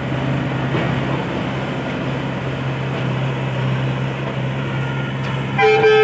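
Excavator's diesel engine running steadily with traffic noise, and a vehicle horn starting to sound near the end.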